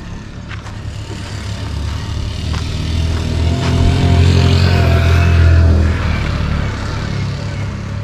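A motor vehicle's engine running, growing louder over a few seconds to a peak about five seconds in, then easing off.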